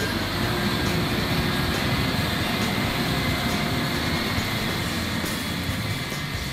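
Large tractor engine running steadily under load as it pulls a cultivator drill across dry tilled soil, a continuous drone that eases slightly toward the end as it moves off.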